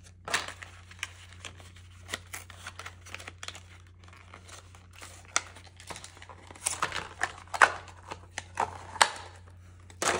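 Packaging being torn open and crumpled by hand: irregular crinkling and ripping, with a cluster of sharper crackles in the second half.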